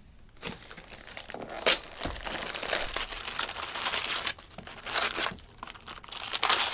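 Gift-wrapping paper being torn and crumpled by hand as a present is unwrapped: a run of rustling and ripping from about half a second in, with a few sharper, louder rips.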